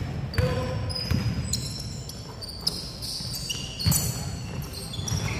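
Basketball shoes squeaking in short high chirps on the indoor court floor as players run and cut, with a basketball bouncing a few times over the low rumble of the hall.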